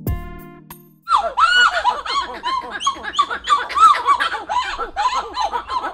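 A pair of titi monkeys (Callicebus) calling together in a vocal duet. It starts about a second in as a fast, overlapping run of rising-and-falling notes, several a second, that carries on steadily.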